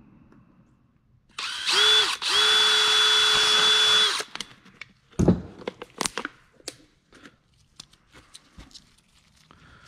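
Cordless drill with a twist bit boring through a plastic bottle cap: a short run, a brief stop, then about two seconds of steady whine. Then a thump and a few light clicks as the drilled cap is handled.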